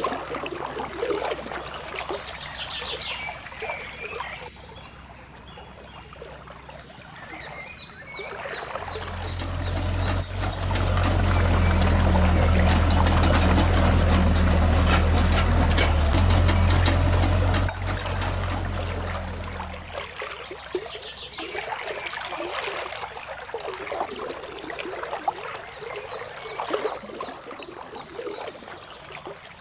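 Huina 1550 RC excavator's electric motors running with a steady low hum for about ten seconds in the middle, starting and stopping with a click. A shallow river runs throughout.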